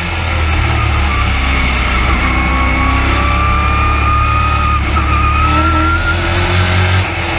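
Midwest Truck Series race truck's engine running hard under racing load, heard from inside the cab, with a high whine that rises slightly about five seconds in. The sound dips briefly near the end.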